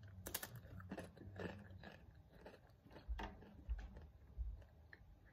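A boy chewing a Tostitos tortilla chip dipped in salsa con queso: faint, irregular crunches of the chip breaking between his teeth.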